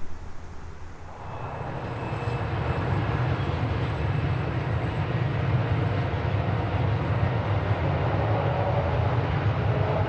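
Diesel freight locomotives running under load: a steady low engine rumble that builds over the first two seconds and then holds.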